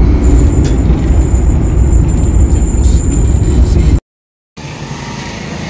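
Loud low rumble of a car in motion, heard from inside the vehicle, with a faint steady high whine over it. It cuts off suddenly about four seconds in; after a short silence a quieter, steady hiss of a different shot follows.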